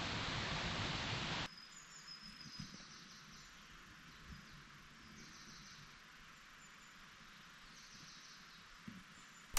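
Steady rushing noise that cuts off abruptly about a second and a half in, leaving a quiet background with faint, repeated high-pitched chirps.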